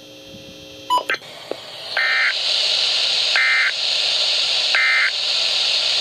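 Three short, identical electronic data bursts about a second and a half apart, played over steady radio hiss through a NOAA weather radio's speaker. They are the SAME end-of-message code that closes an Emergency Alert System warning broadcast. A brief tone and click come about a second in.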